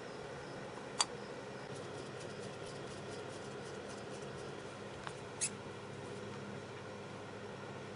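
Small, sharp clicks of carburetor parts being handled and fitted: one about a second in, then two more around five seconds in, with a few faint ticks between them, over a steady faint hum.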